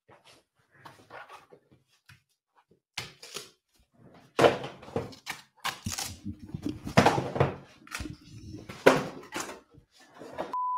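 A framed poster being lifted off a wall and handled: a string of irregular knocks, bumps and rustles, loudest a little before the middle and again past it. A short steady beep tone starts right at the end.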